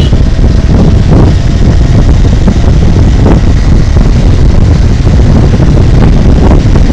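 Loud, steady wind rumble on the microphone of a motorcycle moving at road speed.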